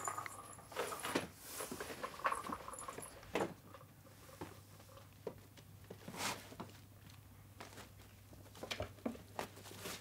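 Soft scattered taps, scuffs and rustles of cats playing and pawing about on a plush rug. The sounds are busiest in the first few seconds and then come more sparsely.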